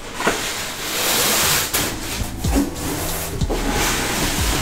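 Styrofoam packing rubbing and scraping against a cardboard box as it is worked loose, a continuous rough scraping with a few knocks.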